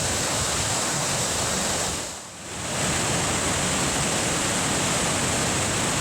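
Waterfall's steady rushing water, a dense roar of noise that dips away briefly about two seconds in and comes straight back.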